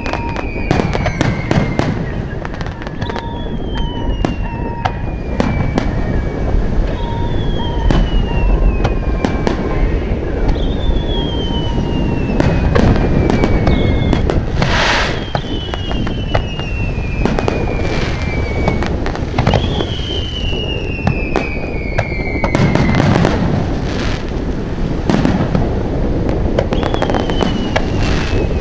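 Aerial fireworks shells bursting with repeated bangs and pops, and a falling whistle every two to three seconds. About halfway through comes a loud hissing, crackling burst lasting around a second.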